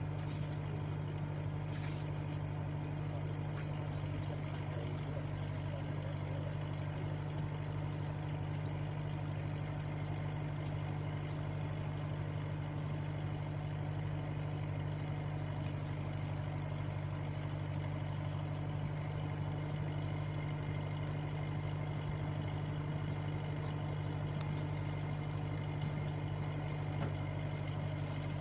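Engine idling steadily: an unchanging low hum with no change in speed.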